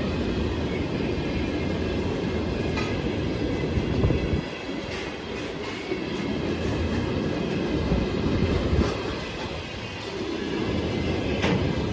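Freight train of railway tank cars rolling past at close range: a steady low rumble of steel wheels on rail, with sharp wheel clicks here and there and a louder swell every few seconds as wheel sets go by.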